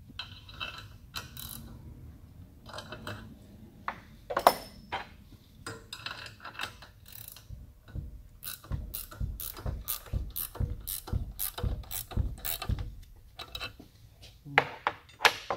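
Ratcheting wrench clicking as it turns the nut of an LS valve spring compressor, in an even run of about three clicks a second through the middle. Scattered sharp metal clicks and taps come before and after it.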